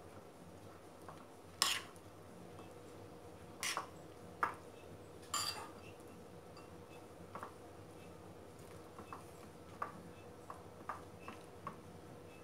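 Metal spoon clinking and scraping against a bowl while stirring cooked rice with raw beaten egg. There are a few louder clinks in the first half, then softer, scattered ticks.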